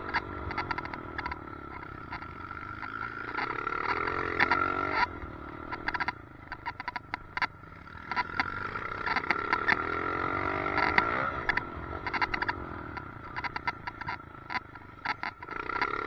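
Motorcycle engine revving up and down as it rides, heard from a helmet chin-mounted camera, with a steady whine and clusters of sharp rattling clicks. The rattle fits the loose chin mount that makes the weird noise.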